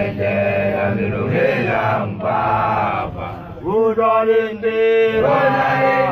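Young Basotho initiates (makoloane) chanting in male voices, with long held notes and sliding pitch. The chant drops away briefly about three seconds in, then comes back loud.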